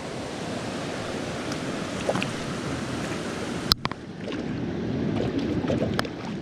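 Rushing creek water, a steady noise, with one sharp click about two-thirds of the way through, after which the sound dips briefly quieter.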